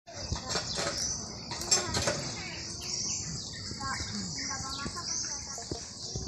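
A steady, high-pitched chorus of insects, swelling now and then, with a few sharp clicks and faint chirps over it.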